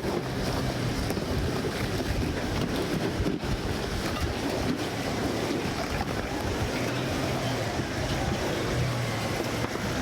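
Wind buffeting the microphone over the low, steady running of an off-road vehicle's engine as it crawls over rocks.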